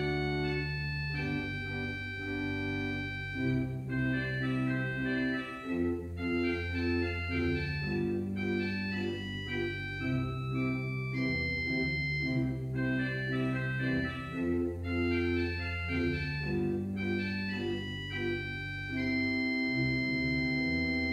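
Church organ playing a postlude: sustained chords over long bass notes with a moving melody line on top, settling into a long held chord near the end.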